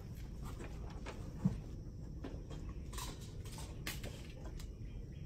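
A few scattered light clicks from dogs' claws on concrete over a low, steady background rumble.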